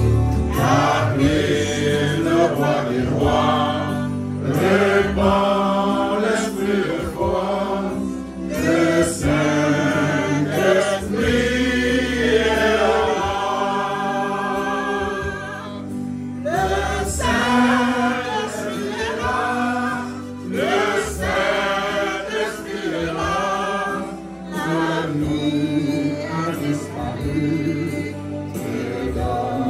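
A group of men and women singing a gospel hymn together, voices overlapping continuously over a low, steady bass line.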